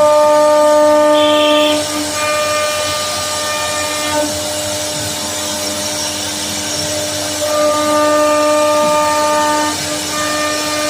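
CNC router spindle running as it carves a design into wood: a steady pitched whine whose upper tones swell and fade as the bit cuts, strongest in the first two seconds and again around eight seconds in.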